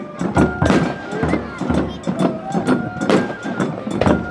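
Music with a melody stepping up and down and frequent sharp beats, with voices mixed in.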